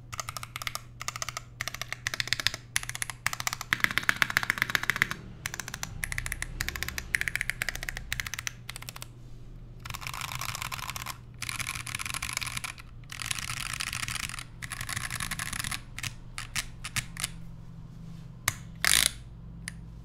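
Typing on a TX60 v1 mechanical keyboard with lubed Zealios v1 tactile switches in a sandwich-mounted brass plate, under GMK keycaps. Fast runs of keystrokes with short pauses between them thin to a few scattered presses near the end, followed by two louder strokes.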